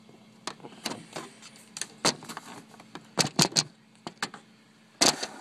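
Hands handling a tarantula enclosure and its substrate: irregular clicks, knocks and rustles, with a quick run of three louder knocks about three seconds in and another loud one near the end.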